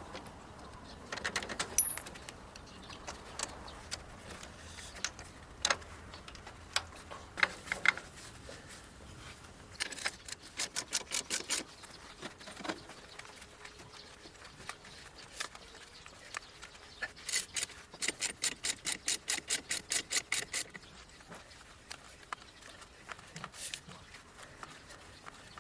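Hand ratchet wrench working bolts on the spreader's pillow-block bearing mount: two runs of quick, even clicks, about a second in the middle and a longer run of about three seconds later, with scattered metal clinks of tools and parts between.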